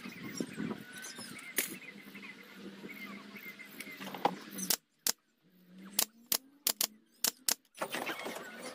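Timber being handled against a wooden A-frame stand: a light background hiss, then after a sudden drop about five seconds in, a quick run of sharp light clicks and knocks of wood on wood.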